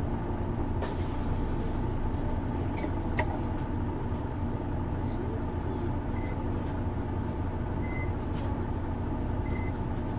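Isuzu Erga city bus's diesel engine running steadily at low revs, heard from inside the passenger cabin as a steady low hum. A single click comes about 3 seconds in, and a short beep sounds three times in the second half.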